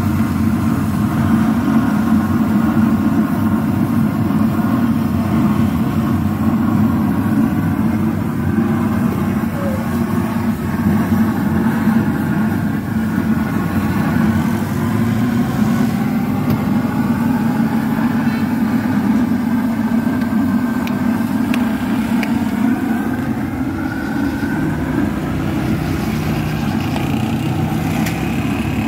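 A steady low mechanical drone, with indistinct voices of people talking faintly behind it.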